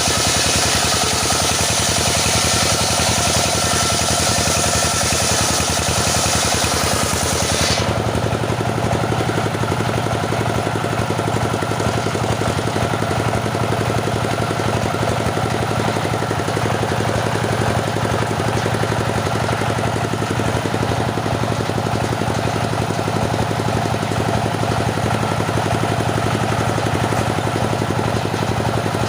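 Petrol-engine wood saw running steadily. About eight seconds in, a bright high hiss stops abruptly, leaving the lower engine drone.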